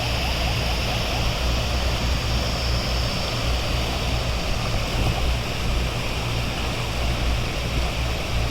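Steady rushing noise of the Godavari river in flood, with an uneven low rumble throughout.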